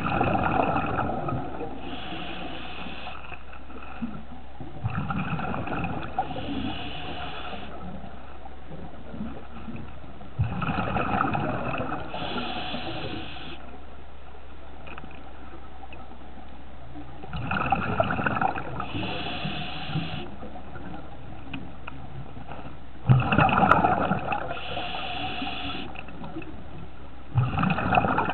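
A scuba diver breathing through a regulator underwater: a bubbling rush of exhaled air, then the hiss of the next breath drawn in, about every five to six seconds, five times over.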